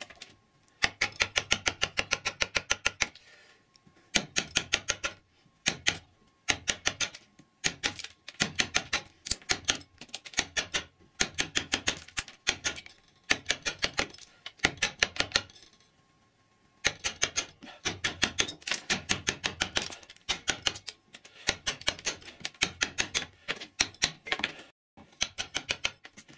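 Round carver's mallet striking the handle of a carving gouge, driving it into a block of wood: rapid runs of light taps, about five or six a second, in bursts of a few seconds with short pauses between them, roughing away the waste wood.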